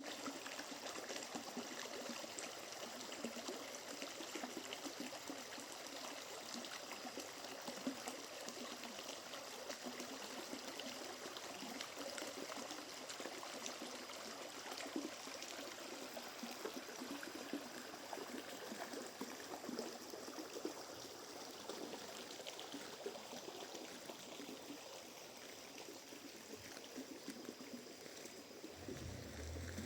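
A small stream of running, trickling water, steady throughout. A low hum comes in just before the end.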